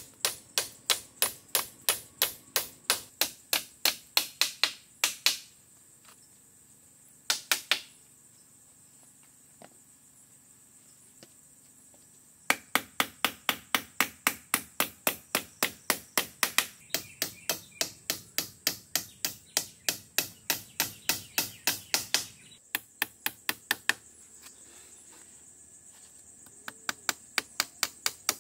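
Quick runs of sharp, evenly spaced tool strikes, about three to four a second, with pauses of a few seconds between runs; typical of hand building work such as hammering or chopping.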